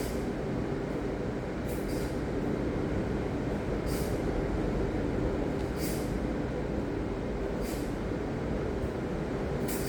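Ocean waves breaking as a steady, continuous roar of surf, with a brief high hiss about every two seconds.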